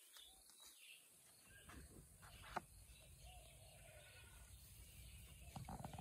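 Near silence: faint background noise with a low rumble, and one sharp click about two and a half seconds in.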